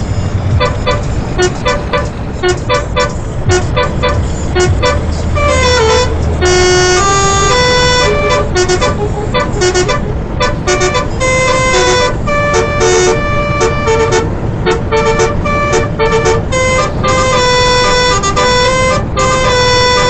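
Bus 'telolet' multi-tone musical air horn playing a quick tune of changing notes, loud and without pause. A low engine hum runs under it for the first six seconds or so.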